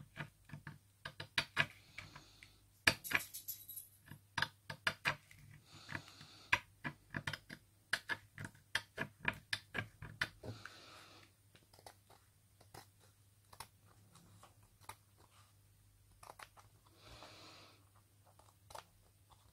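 Blade trimming the edge of patterned decoupage paper: irregular small clicks and ticks, with a few short scratchy strokes of the blade through the paper.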